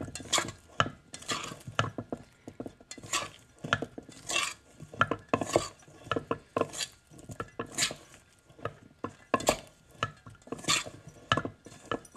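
A spoon stirring cauliflower florets through a flour-and-water coating in a stainless steel bowl: repeated scraping and swishing strokes against the metal, roughly two a second, at an uneven pace.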